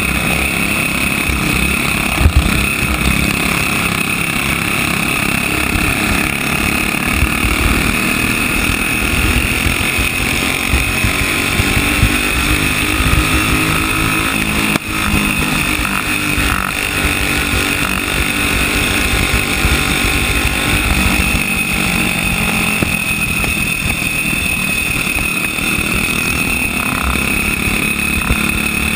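Onboard sound of a flathead racing kart engine running hard at racing speed, its pitch falling and rising as it lifts and pulls through the turns, with a brief drop about halfway through. Wind buffets the on-kart microphone as a low rumble.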